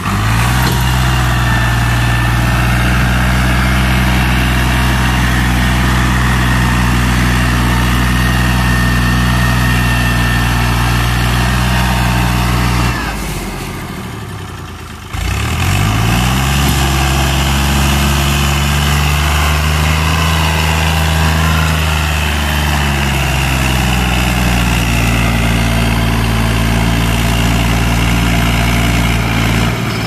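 Al-Ghazi tractor's diesel engine labouring under heavy load, hitched to a trolley piled with sugarcane. About 13 seconds in the revs sag away for two seconds, then climb back up and hold steady again.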